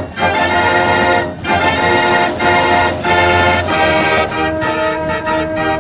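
J. Verbeeck fair organ playing a tune in full chords, with brief breaks between phrases.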